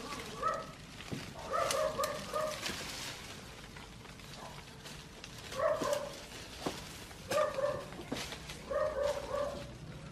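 An animal calling in short, pitched yelps that come in quick clusters of two to four, several times, with scattered sharp clicks between the clusters.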